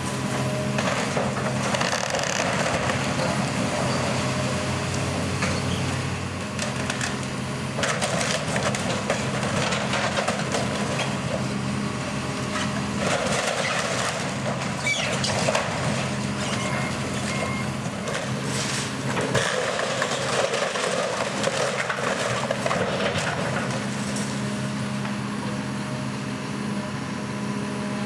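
Heavy demolition machine's engine running steadily while a wooden structure cracks, splinters and is crushed, in repeated crackling bursts.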